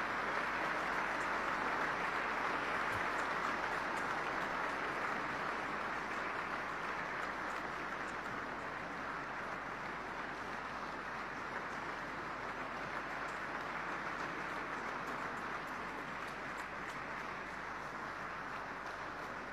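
An audience applauding: a long, steady round of clapping that slowly fades.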